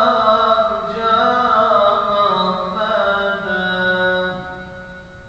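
A man's solo voice chanting a melismatic Turkish religious chant (ilahi) into a microphone, without instruments. He ends on a long held note about four seconds in, which dies away into a faint lingering ring.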